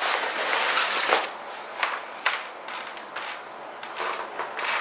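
Handling of a fabric backpack: nylon rustling as its front panel is folded shut, followed by a few light clicks and taps.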